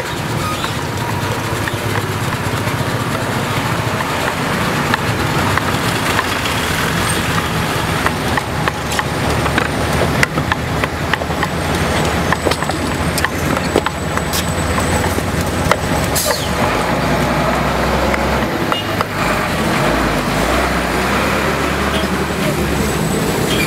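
Busy street-market ambience: road traffic running by with a low rumble, voices in the crowd, and scattered small knocks.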